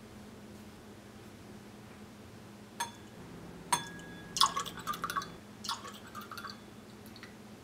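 Two light glass clinks, then orange juice poured from a small glass into a champagne flute, splashing and trickling in two short spells.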